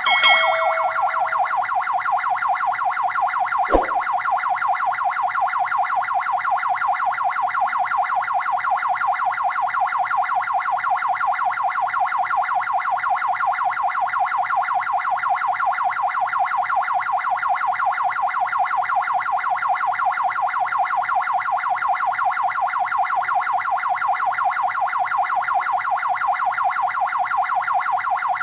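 Electronic ambulance siren sounding continuously in a fast, even warble that repeats without a break.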